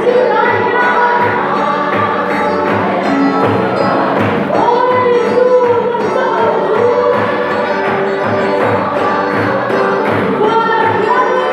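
A group singing a hymn together over a steady drum beat, about two beats a second.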